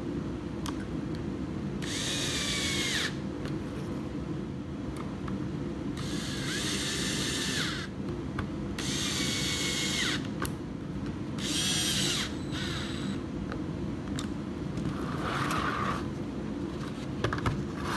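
Porter-Cable 20V cordless drill/driver driving screws into a wooden turntable plate, in four short runs of whirring motor whine a second or two each, with the pitch dipping as each run ends. A few light knocks follow near the end.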